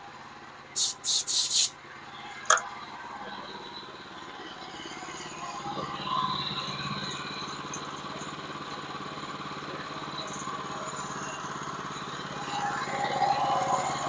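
Small gasoline engine on a Woodland Mills bandsaw sawmill running steadily, getting louder about six seconds in and again near the end. Four short hissing bursts and a sharp click come near the start.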